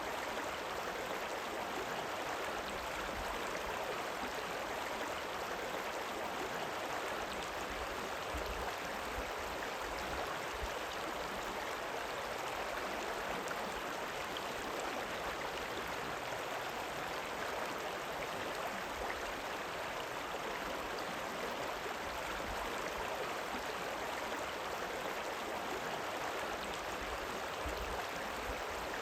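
A river rippling: a steady, unbroken rush of running water that holds the same level throughout.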